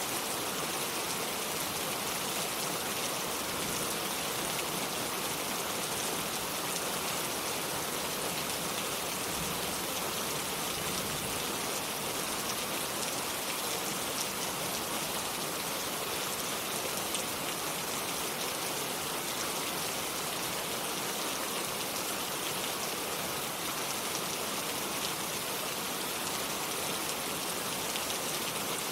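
Steady rain falling, a constant hiss of many drops with no thunder.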